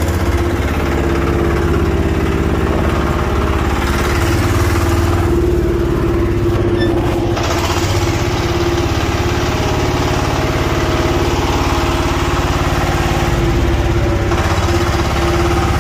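John Deere 5320 tractor's diesel engine idling steadily.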